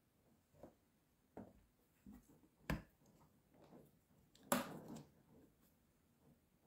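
Make-up tools being handled: a handful of light clicks and knocks, the loudest about two and a half and four and a half seconds in, the last trailing into a short rustle.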